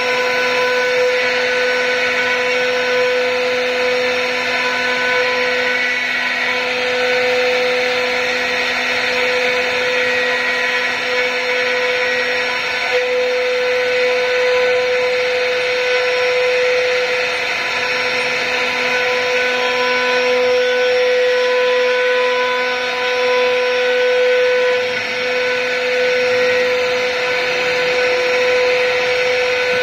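Multi-head 4-axis CNC wood router running, its spindles giving a steady whine while the bits carve rotating wooden blanks, over the noise of the cutting.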